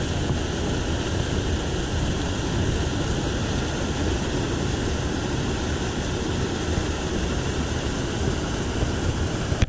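Water pouring over a concrete spillway weir and churning into the canal below: a steady, loud rush.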